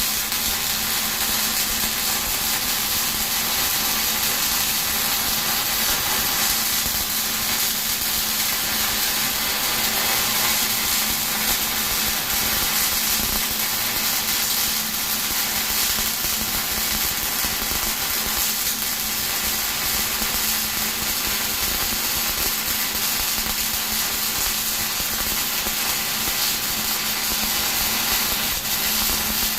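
Electric welding arc crackling and hissing steadily as a weld is laid down.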